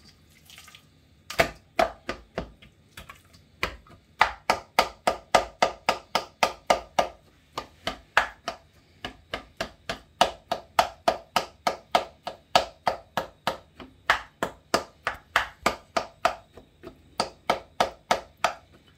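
A kitchen knife stabbed over and over into a seasoned pork joint in a stainless-steel bowl, punching holes so the jerk seasoning works into the meat. Each stab is a sharp knock, about three a second, with brief pauses.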